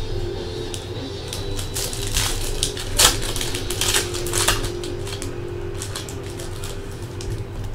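Trading cards being handled by hand: flipped, slid and tapped onto a stack, making a run of light clicks and snaps, the sharpest one about three seconds in.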